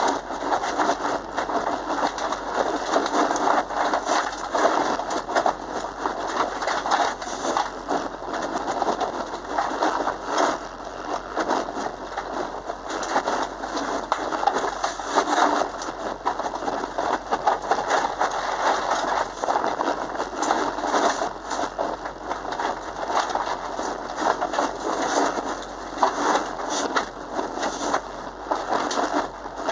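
Subaru Impreza's flat-four engine driven hard on a loose dirt course, heard from inside the cabin. A constant crackle and rattle of gravel and stones striking the car's underside runs over the engine sound.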